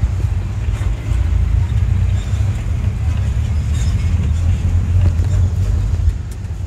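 Steady low rumble inside the cabin of a moving old car with its window rolled down: engine, road and wind noise.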